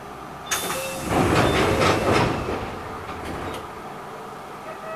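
Sliding passenger doors of an Enshu Railway electric train closing at a station stop: a sudden hiss about half a second in, then a rush of noise that fades after about two seconds.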